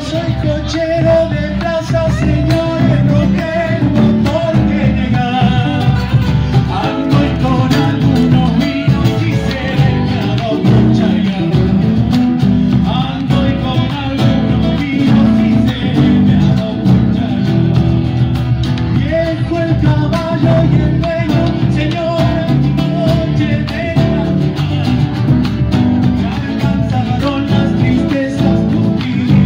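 Live Argentine folk band playing: a man sings lead over strummed acoustic guitar, electric guitar and a bombo legüero drum, amplified through a PA.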